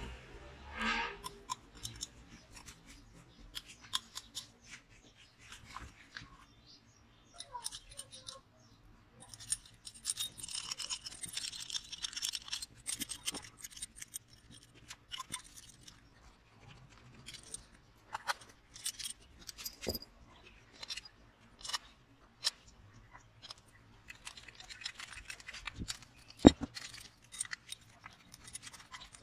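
Small metal engine parts handled by hand on a Briggs & Stratton mower engine's cylinder head: scattered light clicks, taps and scrapes of metal on metal, with a few seconds of rubbing or brushing about ten seconds in and one sharper knock near the end.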